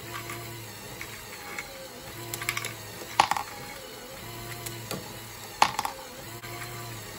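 LEGO Great Ball Contraption module running: a motor hum that swells in a repeating cycle about every two and a half seconds, with plastic clicking and clacking of the mechanism and balls and one sharp clack in each cycle.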